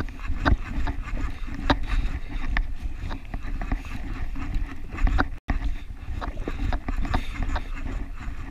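Wind buffeting the microphone and choppy sea slapping against the hull of a drifting jet ski, with irregular sharp clicks and knocks while a jigging reel is worked. The sound cuts out for an instant about halfway through.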